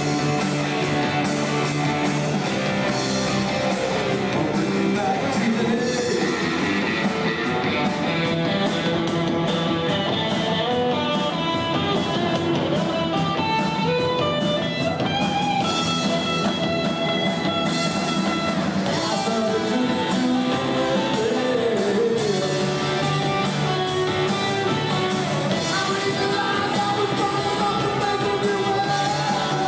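Live rock band playing: electric guitars over drums with steady cymbal strikes, and a singer.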